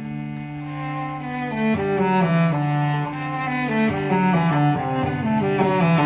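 Classical background music on low bowed strings: a melody moving note by note over a lower line.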